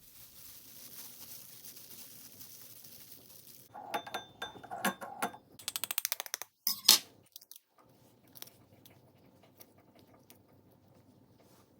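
Kitchen handling sounds during food preparation: a steady hiss for the first few seconds, then clattering with brief ringing tones, a quick run of clicks, and one louder sharp crunch about seven seconds in, followed by a few faint clicks.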